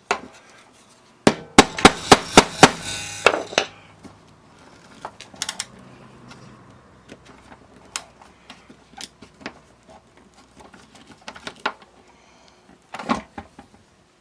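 Metal hand tools clattering and knocking on a workbench: a quick run of sharp knocks lasting about two seconds, then scattered light clicks and a short clatter near the end.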